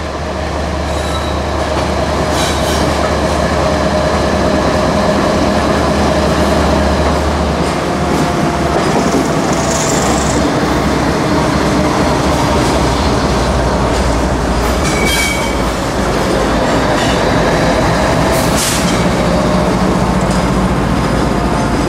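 CSX diesel freight locomotives running as they pass directly underneath, then empty freight cars rolling by. A thin squeal of wheels on rail runs throughout, with a couple of sharp clanks late on.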